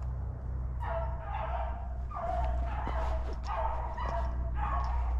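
Beagles baying as they run a rabbit: a string of drawn-out, pitched bays, about one a second.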